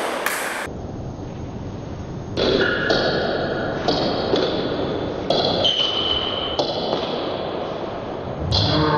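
Table tennis rally: sharp pings of the ball striking the bats and bouncing on the table, one every half second to a second or so, starting about two seconds in.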